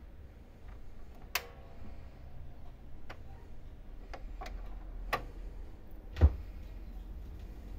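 Sony PS-LX310BT automatic turntable cueing a 45 rpm single: about half a dozen sharp, scattered clicks from the tonearm mechanism and stylus. The loudest is a click with a low thump about six seconds in, as the stylus sets down on the record.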